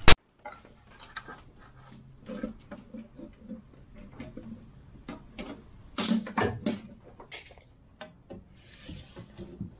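Scattered light clicks and knocks of hand tools and lumber being handled, including a steel tape measure run out across the van floor. There is a sharp click right at the start, a cluster of louder knocks about six seconds in, and a short hiss near the end.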